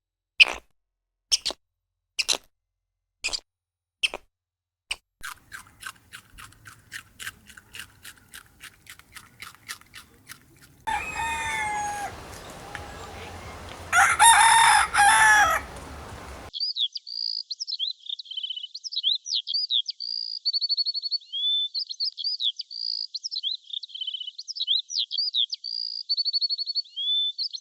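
A rooster crowing loudly, with fowl in the background, set between other animal recordings. Before it come sharp single clicks about once a second, then a fast run of ticks. After it, from about halfway through, a small bird sings rapid high chirps and trills.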